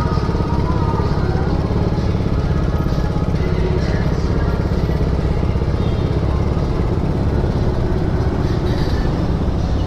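Kymco Super 8 125cc scooter engine running steadily, its newly replaced fuel filter working.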